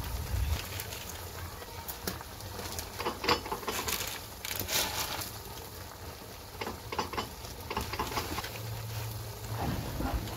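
Hot pot broth bubbling in a wok over an open fire, with scattered irregular crackles and pops.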